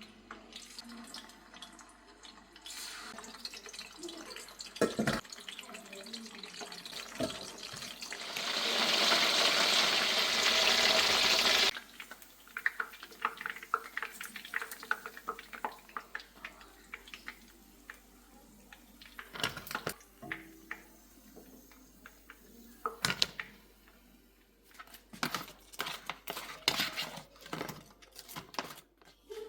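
Kitchen tap running into a sink, turned up to a loud gush and then shut off sharply about twelve seconds in. It is followed by a scatter of light clicks and knocks.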